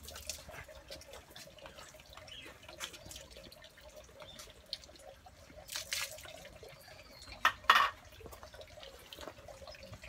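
Water splashing and dripping into a shrine's stone purification basin as hands are rinsed with a ladle, with louder splashes about six seconds in and again near eight seconds.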